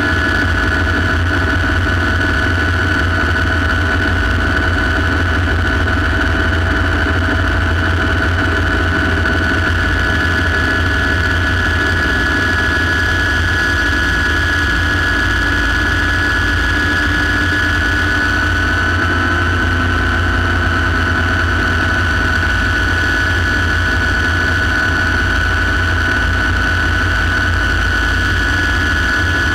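Light turbine helicopter in flight, heard from inside the cockpit: a steady high turbine whine over the rapid low beat of the rotor. The whine dips slightly in pitch about two-thirds of the way through.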